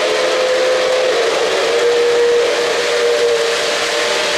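A steam-whistle sound from an O-gauge model locomotive's onboard sound system, held for several seconds with a slightly wavering pitch. Underneath it is the steady rolling rumble of metal-wheeled cars running on three-rail track as they pass.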